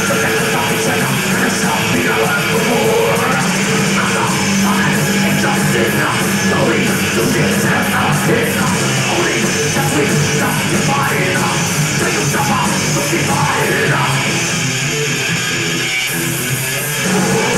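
Thrash metal band playing live, with distorted electric guitars, bass and drums, and a singer shouting over them.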